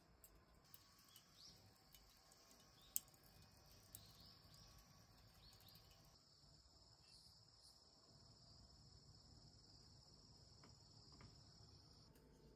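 Faint, steady high-pitched chirring of autumn insects, with a sharp click about three seconds in.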